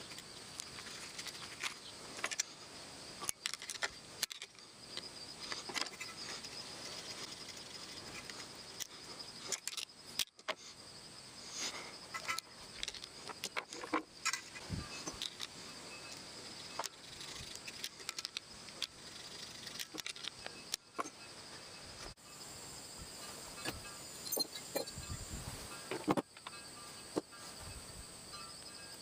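Crickets chirping steadily, with many scattered short clicks and knocks over them.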